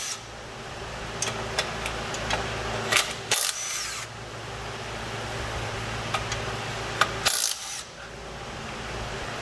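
Hand tools and parts being handled in auto repair work: scattered sharp clicks and clinks, with a few brief louder scrapes about three seconds in and again near seven seconds, over a steady low hum.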